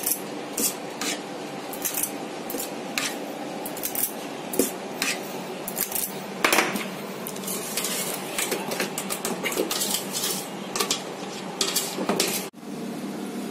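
Metal spring-lever scoop clinking and clicking over and over as batter is scooped from a metal bowl and released into paper cupcake liners. The clicks come irregularly, several a second at times, over a steady background hum.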